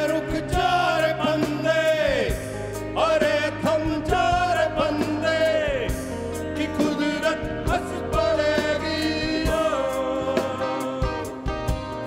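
Live fusion band performance: male voices singing long, wavering held notes that fall away at the ends of phrases, over bass guitar, electric guitar and drums.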